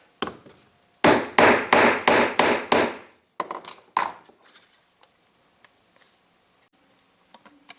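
A hammer striking a hollow gasket hole punch, driving it through a cardboard template into a block of wood. There are about seven quick, loud blows over roughly two seconds, then a few lighter taps.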